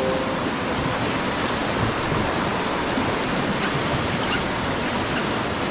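Steady rush of whitewater around a river raft, an even roar without breaks.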